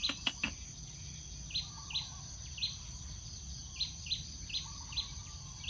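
Outdoor insect drone, a steady high hum, with a bird giving short chirps again and again, roughly every half second. A few sharp clicks come in the first half second.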